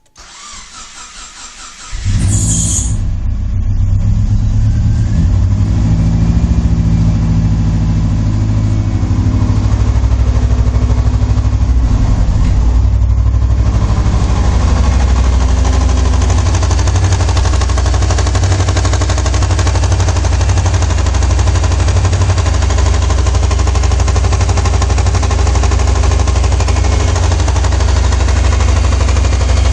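Car engine cranked by its starter for about two seconds, catching and then running steadily at idle. The engine has the knock that the owner is tracing, which he holds is not coming from the fourth cylinder.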